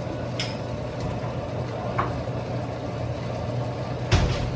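Steady low mechanical hum of a running kitchen appliance, with a light clink twice and a louder clatter of utensils near the end, as spices go into a cooking pot.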